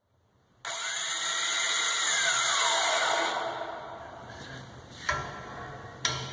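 Electric capstan hoist motor starts about half a second in and runs with a whine that falls steadily in pitch, then dies away after about three seconds. Two sharp knocks follow near the end.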